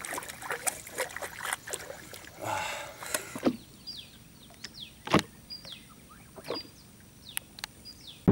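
Water splashing and slapping as a giant snakehead is released over the side of a boat. After that come short high whistled notes, each falling in pitch, repeating about once a second, with a few sharp knocks, the loudest about 5 seconds in.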